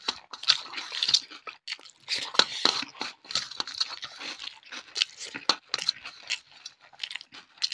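Close-up eating sounds: crunchy chewing in a quick, irregular run of crackles, mixed with fingers kneading rice on a steel plate.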